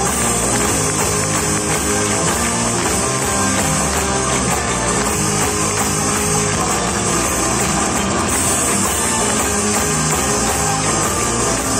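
Live rock band playing through the PA: electric guitars and an acoustic guitar over a drum kit, steady and loud throughout.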